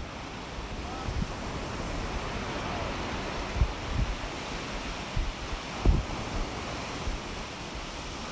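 Surf washing onto a sandy beach, a steady hiss of waves, with wind buffeting the microphone in low thumps that come strongest a few times around the middle.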